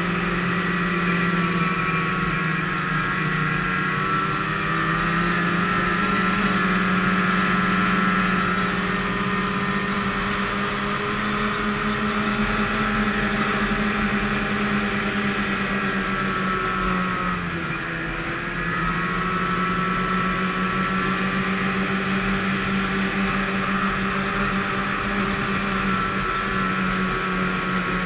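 Snowmobile engine running steadily at trail cruising speed, heard from on the sled. About two-thirds of the way through, the engine note dips briefly and then comes back up.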